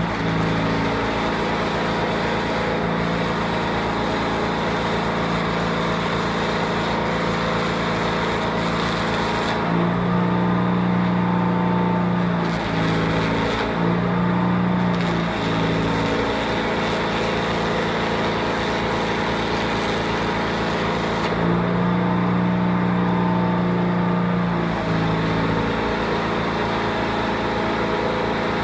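Engine-driven welder's small engine running steadily, its pitch shifting and wavering twice: about a third of the way through, and again about three quarters through.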